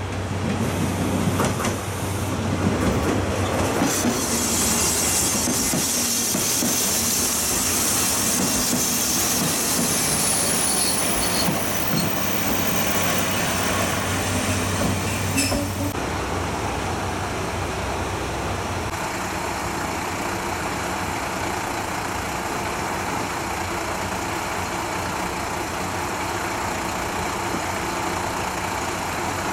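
KiHa 185 diesel railcar pulling in, its wheels and brakes giving a long high squeal as it slows, over the rumble of its diesel engine. After a sudden change about halfway through, a diesel railcar's engine idles steadily.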